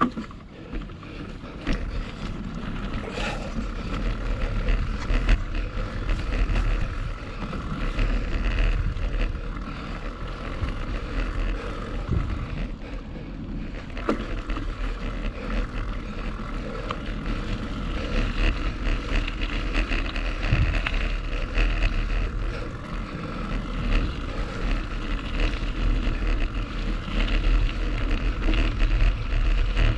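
Wind buffeting the camera microphone over the steady rumble and rattle of a mountain bike rolling fast along a dirt singletrack.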